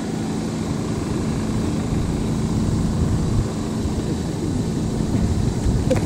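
A steady low rumble with a faint steady hum running through it.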